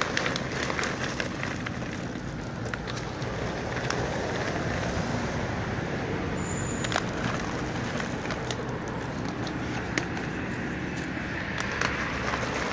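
Dry cat food pellets clicking and scattering onto stone paving tiles as they are poured from a crinkling plastic food bag, over a steady background hum of traffic.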